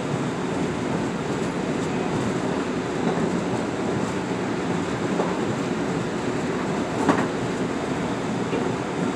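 Inside a Metro-North M8 electric railcar running at speed: the steady rumble and rush of the wheels on the rails. One sharp click comes about seven seconds in.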